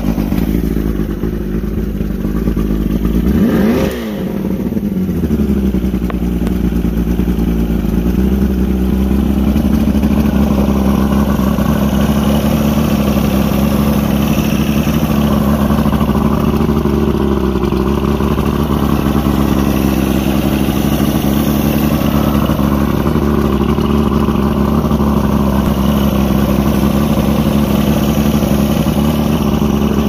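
Old Mercury 80 hp inline-four two-stroke outboard running. Its pitch climbs sharply about four seconds in, then sinks back over a few seconds and it settles to a steady run.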